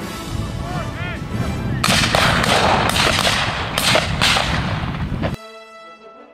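Loud rumbling noise on the camera microphone in an open field, with several sharp cracks between about two and five seconds in. It cuts off suddenly near the end, leaving background music.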